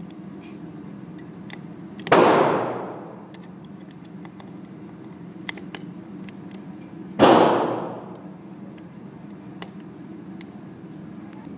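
Two shots from a Glock 22 .40 S&W pistol, about five seconds apart, each a sharp crack that trails off in an echo lasting about a second.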